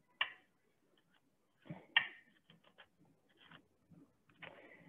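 Faint, short scrapes and clicks from scooping the fuzzy choke out of a halved artichoke. The clearest come just after the start and about two seconds in, with scattered faint ticks between.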